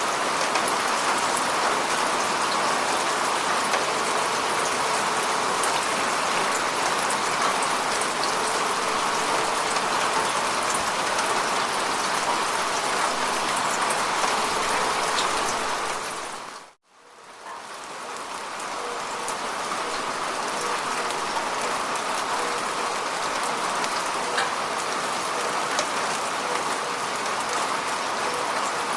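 Steady rain falling on a lake's surface, a dense patter of drops. About two-thirds of the way through it fades out to near silence and quickly fades back in.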